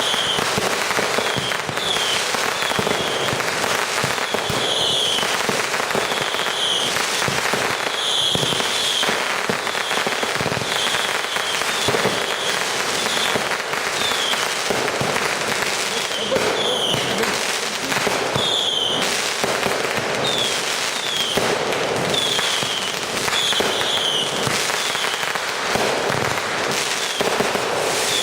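Fireworks finale: a dense, continuous barrage of bangs and crackles, with short high falling whistles repeating over it about once a second.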